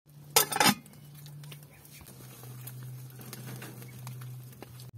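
A metal pot lid clanking against a cooking pot on a wood fire, one loud clatter about half a second in. A faint steady low hum follows.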